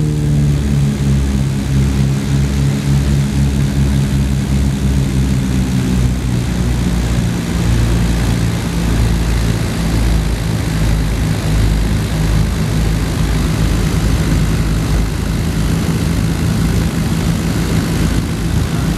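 Cabin sound of a Britten-Norman Islander's twin piston engines and propellers on approach. The engine pitch eases down over the first few seconds as power comes back, then settles into a steady drone with a regular pulsing beat between the two engines.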